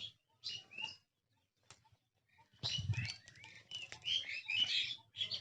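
Small birds chirping: a few short chirps, a pause of about a second and a half, then a dense stretch of overlapping chirps and tweets.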